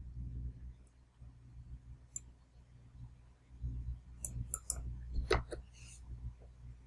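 Sharp clicks from a computer mouse and keyboard: a single click about two seconds in, then a quick run of clicks between about four and six seconds. A low, steady hum lies under them.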